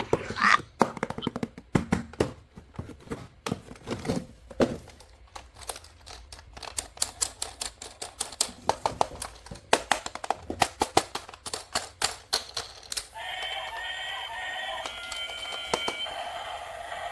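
Rapid clicking and clattering of plastic toys being handled. About two-thirds of the way through, a battery-powered toy's electronic sound effect starts and runs on steadily.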